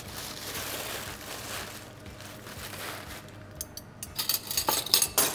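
Crumpled aluminium foil crinkling as it is handled. Near the end comes a quick run of sharp clicks and clinks.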